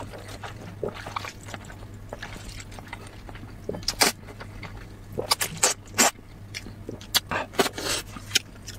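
Glass noodles from a bowl of hot and sour noodles being slurped and chewed: a string of short wet slurps, sucks and mouth smacks, sparse at first and coming thick and fast from about halfway through, over a low steady hum.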